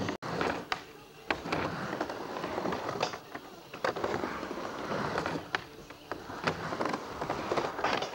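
Skateboard wheels rolling on a wooden mini ramp, with sharp clacks of the board and trucks hitting the ramp and coping about once a second.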